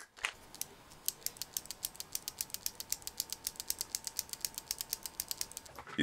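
Blue clicky mechanical keyboard switches clicking rapidly, about eight sharp clicks a second, with a faint steady tone underneath.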